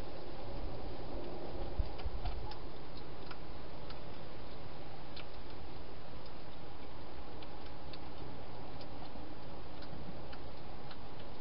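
A hedgehog eating from a dish inside a plastic feeding box: scattered, irregular small clicks of chewing over a steady hiss, with a dull low bump about two seconds in.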